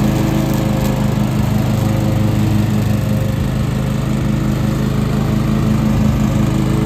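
2013 John Deere X320 lawn tractor's engine running at a steady speed as the tractor drives across grass.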